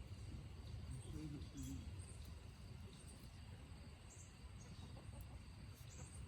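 Domestic chickens clucking softly, with short high chirps repeating in the background.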